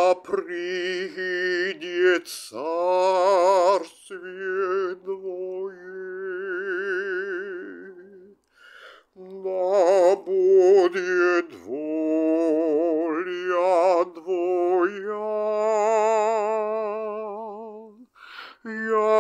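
Wordless singing: a voice holding long notes with a wide vibrato, sliding up or down between them, with short breath pauses.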